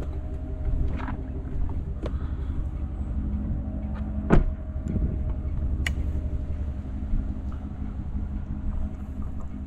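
Vehicle engine running steadily, with a few sharp clicks and knocks over it, the loudest about halfway through.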